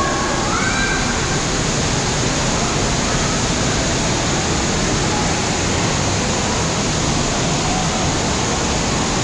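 Water park ambience: a steady, loud rush of falling and splashing water, with faint distant voices in the background.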